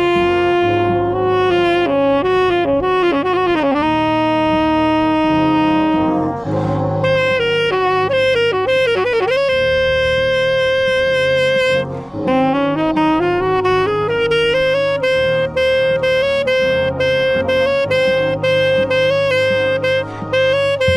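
Tenor saxophone playing a solo close up, with the marching band's brass chords underneath. It plays held notes and quick runs, then about twelve seconds in scoops upward into a high note held for some six seconds.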